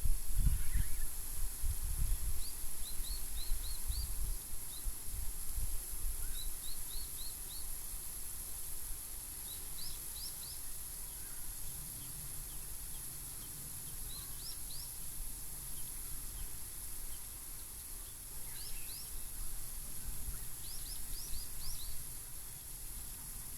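Small birds singing: repeated series of three to five quick rising chirps every few seconds, over a steady high hiss and some low rumbling in the first few seconds.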